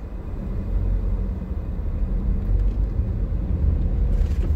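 Car engine and road rumble heard from inside the cabin, growing louder about half a second in as the car pulls away and drives on.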